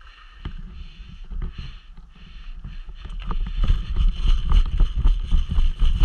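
Low rumble of wind and movement on a body-worn camera's microphone, with scuffing and knocking as the wearer moves. It grows much louder about halfway through.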